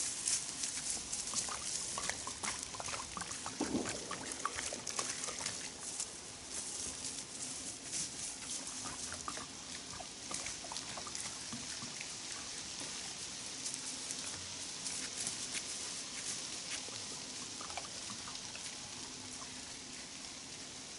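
Footsteps swishing and crackling through tall grass, fading as the walker moves away.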